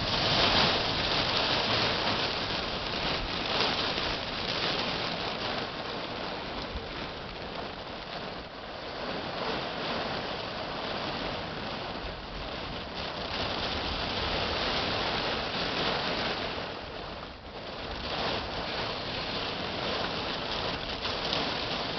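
Heavy rain pouring down and pelting surfaces during a severe thunderstorm, a steady dense hiss of many small drop impacts.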